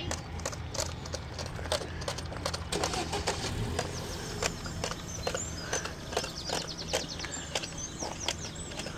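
Two coupled Class 150 Sprinter diesel multiple units passing: a steady low engine drone with many irregular sharp clicks, and a few faint bird chirps in the middle.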